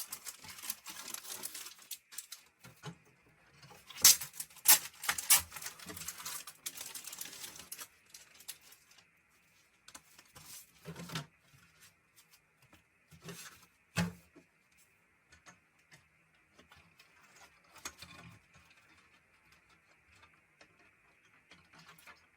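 Plastic binder sleeves and packaging being handled: rustling and crinkling with quick clicks for the first several seconds, then a few scattered taps and clicks.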